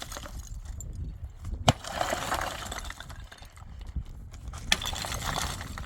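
Three sharp knocks, the first the loudest, among scraping and rustling noise, typical of hands-on building work.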